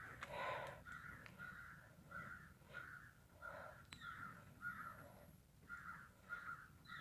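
Faint bird calls: a dozen or so short, harsh calls at an even pace, about two a second.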